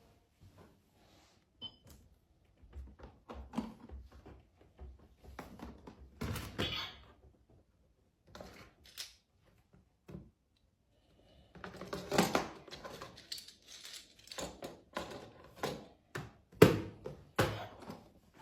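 A series of irregular knocks, clicks and clatters, the loudest clusters about twelve seconds in and again near the end.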